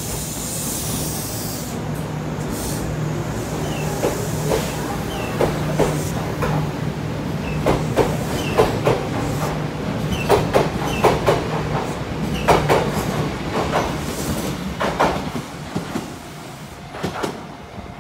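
Kintetsu 6200 series electric train pulling out of a station and running past close by: a steady motor hum under the wheels clacking in pairs over rail joints, fading near the end as the last car goes by. A brief hiss at the start.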